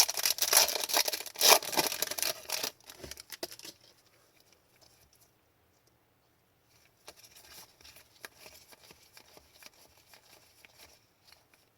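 Foil trading-card pack being torn open, with loud crinkly tearing for about the first three seconds. Later comes quieter rustling and clicking as the cards are handled.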